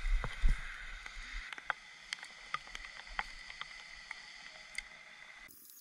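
Water sloshing and a couple of heavy knocks as a fish is lifted in a landing net, followed by quieter water sounds with scattered small sharp clicks.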